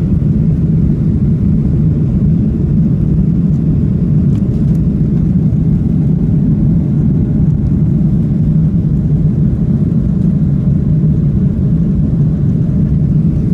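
Cabin noise inside a Southwest Boeing 737 taxiing, heard from a seat over the wing: the jet engines at taxi power and the rolling airframe make a steady low rumble.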